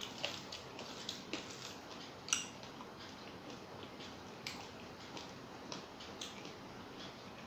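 Close-miked eating sounds: fingers squishing rice and fried bitter gourd together on a plate, and chewing. These come as irregular soft, wet clicks, with one sharper click a little over two seconds in.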